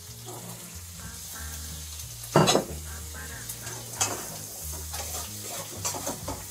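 Cooked chickpeas tipped into a frying pan of hot oil and garlic: a loud burst of sizzling a little over two seconds in, then a spatula stirring and scraping the pan, with smaller clatters, over steady frying.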